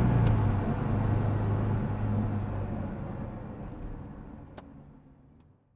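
Cabin noise of a Subaru Impreza GC8 on the move: the flat-four engine's steady low drone and road noise, fading out to silence over the last few seconds.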